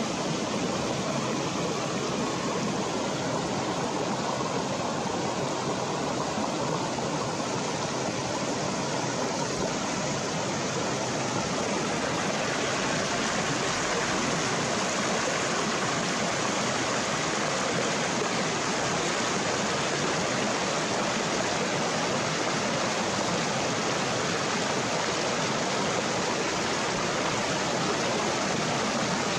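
River water rushing steadily over rocks, a constant loud rush that grows slightly louder a little under halfway through.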